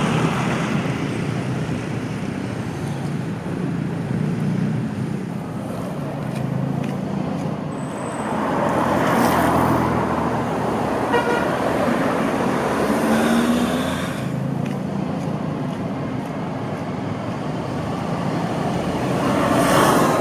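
Street traffic: a steady wash of road noise with vehicles passing by, swelling twice as cars go past. A horn toots briefly about halfway through.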